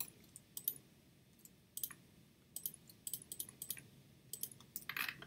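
Faint, irregular clicks of a computer mouse and keyboard, a dozen or so light clicks, with a short hiss near the end.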